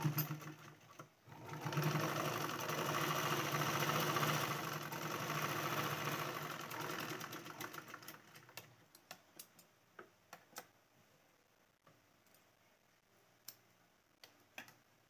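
Black domestic straight-stitch sewing machine stitching a seam through cloth. It runs briefly, pauses, then runs steadily for about six seconds before slowing to a stop. Scattered light clicks follow as the fabric is handled at the machine.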